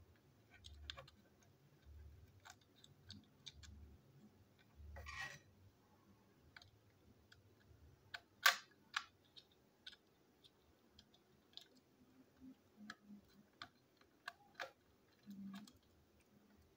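Faint, irregular clicks and taps from a plastic toy train engine being handled and worked on with a small screwdriver, with a few soft bumps in the first five seconds and one sharper click about halfway through.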